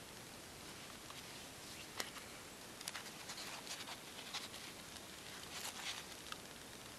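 Faint scattered ticks and scratches of a wooden stick working moss on a metal blade, with the sharpest click about two seconds in and a cluster of small scrapes after it.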